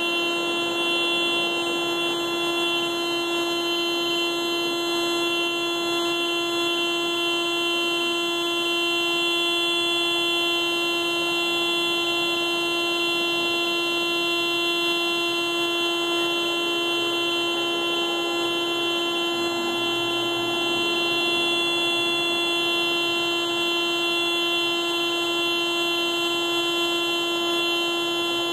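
Car alarm sounding through the car's horn as one continuous, unbroken blare, steady in pitch and level.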